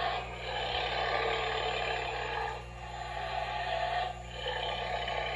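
Spirit Halloween Experiment 4 animatronic playing its creature sound effects from its built-in speaker: growling monster noise in three stretches, with short breaks about two and a half and four seconds in.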